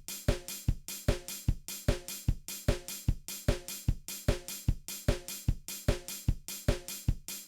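Music: a steady drum-kit beat with kick, snare and hi-hat, a hit about every 0.4 seconds, over a sustained pitched part.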